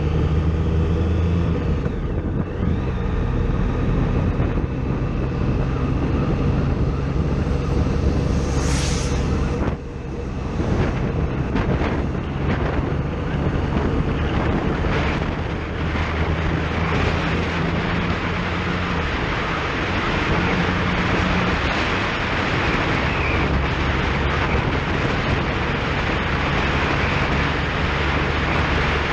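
Triumph Sprint ST 1050's three-cylinder engine running steadily as the motorcycle rides along, with wind rushing over the microphone that grows louder in the second half. The level dips briefly about ten seconds in.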